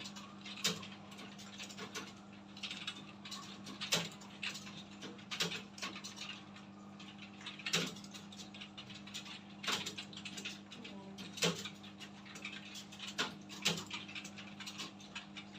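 Several computer keyboards being typed on at once: a dense, irregular clatter of key clicks with a louder clack every few seconds, over a steady low hum.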